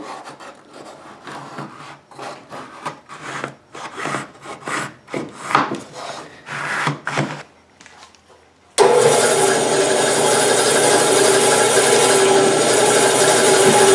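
A homemade marking tool scraping along the bark of a pear log in a series of uneven strokes as a cutting line is scribed. About nine seconds in it cuts to a bandsaw running with a steady hum.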